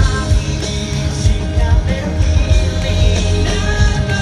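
Live pop-rock band playing loudly over a stadium sound system: electric guitar, bass and drums with a male lead singer.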